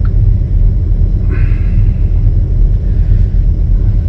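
Steady low rumble of a running semi-truck's diesel engine.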